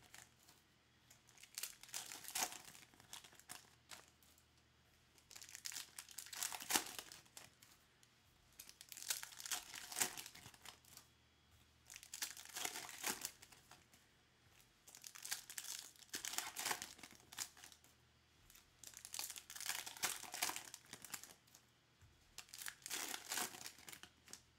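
Foil trading card pack wrappers crinkling and tearing as packs are ripped open by hand, in about seven short bouts a few seconds apart.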